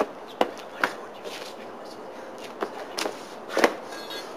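Mock sword fight: a scattering of sharp clacks and knocks, about six in four seconds, with scuffling between.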